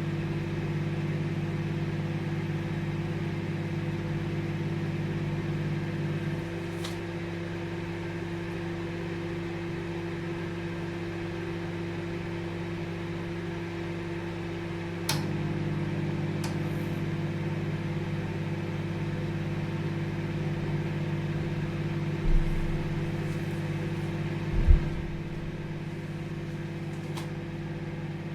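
Microwave oven running with a steady low electrical hum and fan whir. Part of the hum drops out about six seconds in and comes back with a click around the middle. A couple of short low thumps come near the end.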